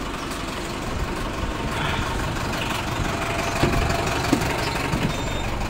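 Bus engine idling, a steady low rumble with street noise around it.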